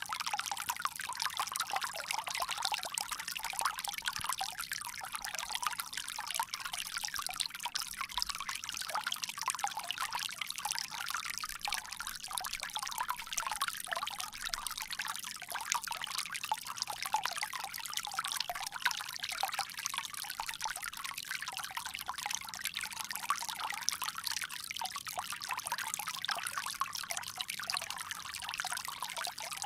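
Water pouring steadily from a bamboo spout, a continuous light trickle and splash without pauses.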